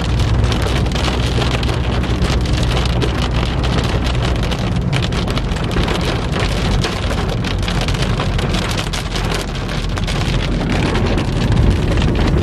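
Heavy rain pelting a moving car's roof and windshield, heard from inside, over a steady low rumble of the car and strong wind.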